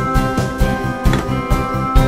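Upbeat background music with a steady drum beat and guitar.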